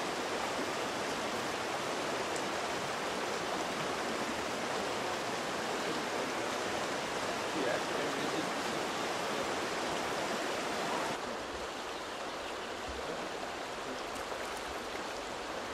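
River water rushing steadily over and around granite boulders in a rocky stretch of rapids; the sound drops a little in level about eleven seconds in.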